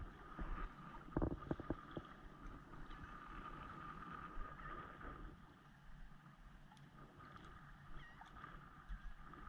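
Shallow bay water lapping and sloshing around a wading angler's legs, with a few sharp splashes about a second in.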